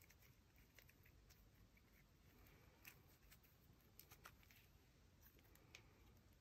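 Near silence, with faint, scattered soft clicks and pops of white memory dough slime being stretched, twisted and squeezed by hand.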